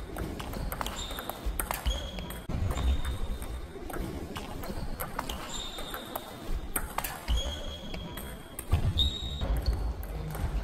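Table tennis rally: the plastic ball clicks sharply off the rackets and the table, about one to two hits a second, with short high-pitched shoe squeaks on the floor and dull footfall thumps between strokes.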